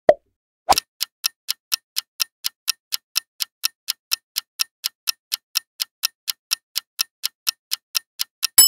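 Quiz countdown-timer sound effect: a pop as the last answer option appears, then an even clock-like ticking about four times a second, ending in a ringing chime right at the end as the time runs out.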